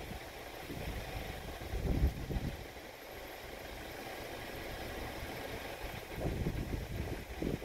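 Low, uneven rumble of a car's engine idling at a standstill, swelling about two seconds in and again near the end.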